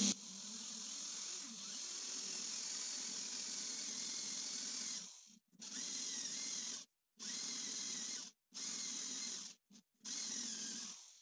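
Corded electric drill with a spade bit boring into plywood. It runs for about five seconds, then stops and starts again in four shorter bursts.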